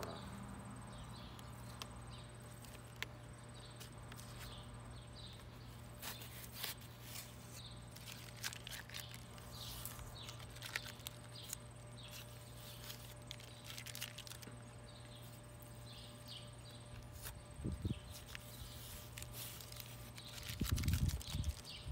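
Outdoor ambience: scattered faint bird chirps over a steady low hum, with a few sharp clicks, and louder handling knocks about eighteen seconds in and again near the end.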